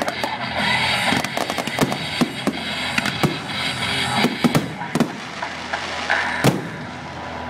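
Aerial fireworks display: rapid shell bursts and crackling, with one heavy bang about six and a half seconds in, thinning out near the end.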